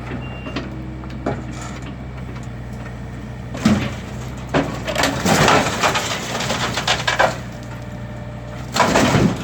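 Demolition debris, mostly wood, cracking and crushing in several bursts: one sharp crack a few seconds in, a longer run of splintering and crunching in the middle, and another burst near the end. A steady low engine hum from heavy machinery runs underneath.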